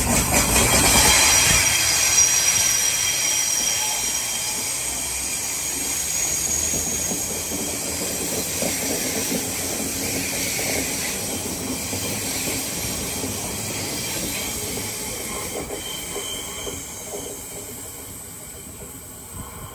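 Sydney Trains double-deck electric train running along a tight curve with high-pitched wheel screeching, loudest in the first few seconds, over a steady rumble of the cars on the track. The squeal comes from the wheels on the sharply curved track. A shorter squeal returns near the end as the sound fades away.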